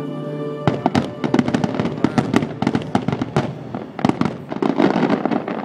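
Fireworks finale barrage: many shell bursts in quick succession, overlapping bangs and crackle, starting about a second in and thinning out near the end. Before the barrage, a held chord of the show's music cuts off.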